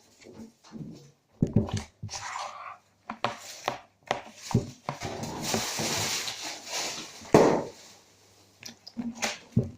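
Slime and its plastic tub being handled: scattered knocks, clicks and squishing, with a couple of seconds of hissing noise about halfway through and one sharper knock just after.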